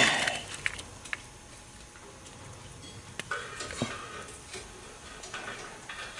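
Scattered light clicks and taps of parts and a tool being handled during work on an automatic transmission's internal wire harness, with faint rustling between.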